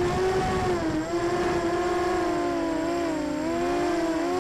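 Emax Nighthawk 250 quadcopter's brushless motors and propellers whining steadily in flight, the pitch wavering a little as the throttle changes, with the motors' tones drifting slightly apart and back together.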